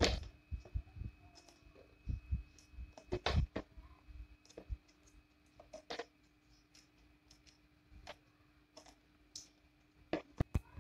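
Scattered clicks and light knocks from a plastic bag and the plastic shell of a welding helmet being handled, irregular and a second or more apart, over a faint steady hum.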